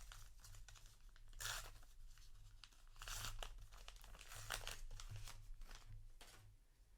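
A paper booster pack of trading cards being torn open and its wrapper crinkled, in several short rips and rustles.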